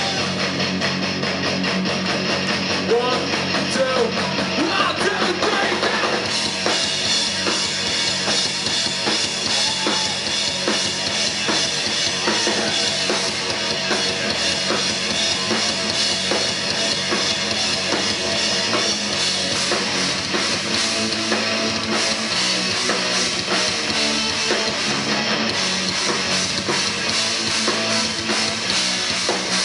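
A live rock band plays loud through the PA: electric guitars and a drum kit, with some singing. About six seconds in the drums settle into a steady driving beat.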